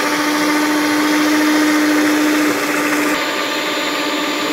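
Electric stand mixer running, its beaters working through cake batter: a steady motor hum. A little past halfway the hum drops slightly and begins to waver.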